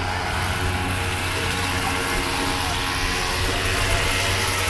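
Two-stroke petrol string trimmers and a backpack brush cutter running steadily at high revs, a constant engine hum with a hissy edge.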